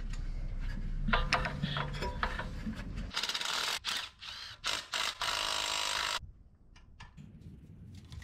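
Hand ratchet wrench clicking as the manifold bolts are backed out of an Onan BF43M engine. There are spaced clicks at first, a loud fast run of ratcheting from about three to six seconds, then a few lighter clicks.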